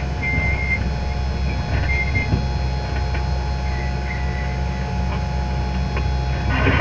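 John Deere 8430 tractor and 1790 planter running: a steady low machine rumble with a steady whine over it, and brief high chirps now and then.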